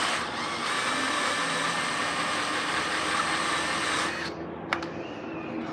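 Cordless drill running steadily at constant speed, boring out a bigger hole in a plastic motorcycle tail-light housing. It stops suddenly about four seconds in.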